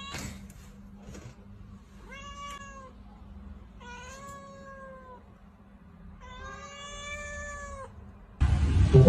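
Domestic cat meowing three times, each call about a second long with a slight rise and fall in pitch, the third the longest. Loud music comes in near the end.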